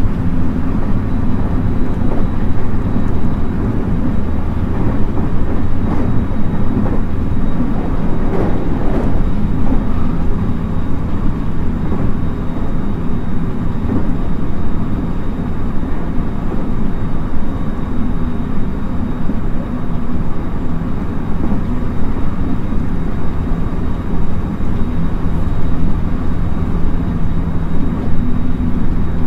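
Running noise inside a JR West 223 series 2000-subseries electric train car at speed: a steady, loud rumble of wheels on rail. A low hum under it fades out about two seconds in and comes back near the end.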